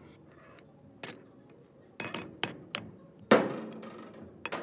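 Sharp metal-on-metal knocks and clanks from steel pieces striking a steel flatbed frame. There are several irregular strikes, the loudest about three seconds in, which rings out briefly.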